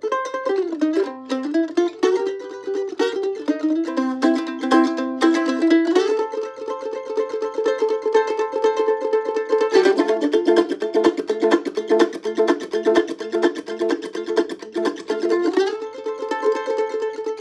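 Solo F-style mandolin picking a blues melody. A note slides down and back up near the start, and from about ten seconds in there is a stretch of rapid tremolo picking on held notes.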